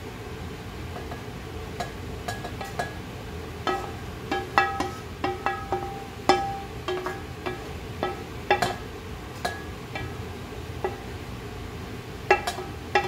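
Wooden spoon scraping and knocking cooked diced chicken off a ceramic-coated frying pan into a stainless steel pot: irregular clinks and taps, each with a short ringing tone from the metal.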